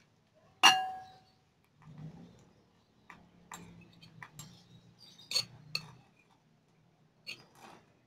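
A metal spoon strikes a ceramic bowl with one sharp, ringing clink about half a second in, followed by lighter taps and scrapes of spoon and bowls as the filling is tipped and spooned into a glass bowl.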